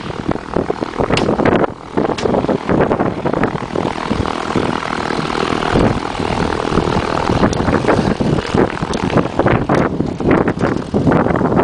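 Light aircraft piston engine and propeller running, a steady rough drone.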